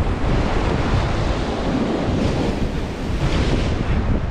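Ocean surf washing and breaking against a rock ledge, with wind buffeting the microphone as a low rumble. A louder wash of surf swells about halfway through.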